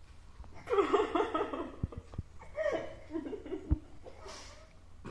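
Women laughing and giggling through mouthfuls of food, in two bursts: one about a second in and another near the middle.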